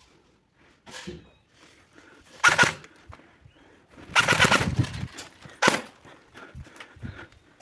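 Airsoft electric rifles (AEGs) firing: a short burst about two and a half seconds in, a longer rattling burst of rapid shots around four seconds in, and another short burst just under six seconds in.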